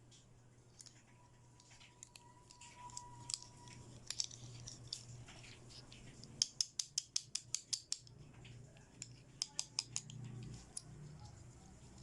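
Small sharp clicks and rustles from a toy set and its packaging being handled, with a fast run of about ten crisp clicks in under two seconds about six and a half seconds in, and four more about three seconds later, over a steady low hum.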